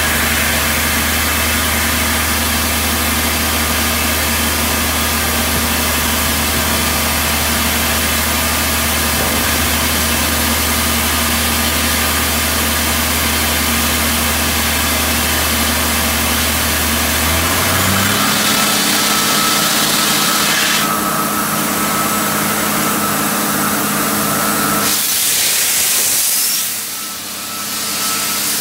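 1994 Ingersoll-Rand T3W drill rig's engine running steadily, its pitch stepping up a bit over halfway through. Near the end a loud rushing hiss briefly covers it before the engine settles again.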